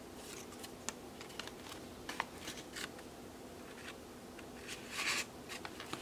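Paper pages and a card tag handled by hand: scattered light taps and clicks, and a brief rustle of paper sliding about five seconds in as a tag is drawn from its pocket.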